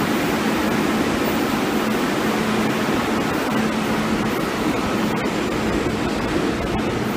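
MetrôRio subway train running past along the platform in an underground station, a steady rushing rumble of its cars, with a few light clicks in the second half.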